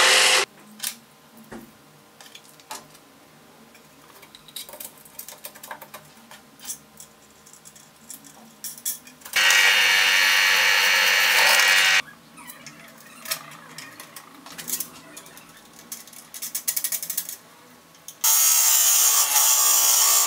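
A disc sander running cuts off within the first half second, followed by quiet stretches of small clicks and knocks. About nine seconds in, a drill press bores into plywood for nearly three seconds. Near the end, a wood lathe turns a wooden spindle against a gouge for about two seconds.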